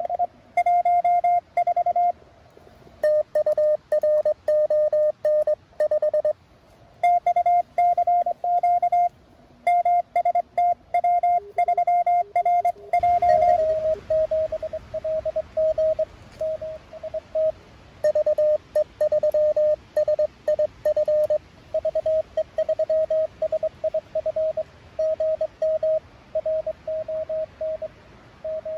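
Morse code (CW) tones from a Mountain Topper MTR-4B QRP transceiver, a single pitch keyed on and off in dots and dashes. About 13 s in, the tone drops slightly in pitch and receiver band hiss comes up under it as another station's exchange is copied.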